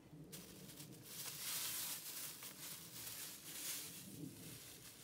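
Thin plastic bag and clear plastic sheet crinkling and rustling as they are handled and pulled apart, starting about a third of a second in and coming and going in crackly spells.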